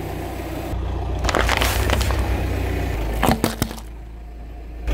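A car tyre rolls over and crushes objects on paving stones, first plastic toy rings, then boiled potatoes. There are two clusters of sharp cracks and crunches, about a second and a half in and about three and a quarter seconds in, over a steady low rumble from the car.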